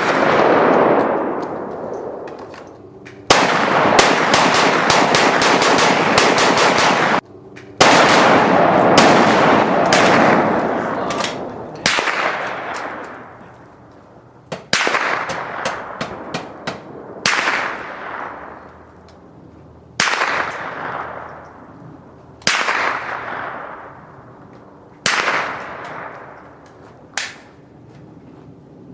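Gunfire: a shot, then a rapid automatic burst lasting about four seconds, a second quick volley, then single shots every two to three seconds, each trailing off in a long echo.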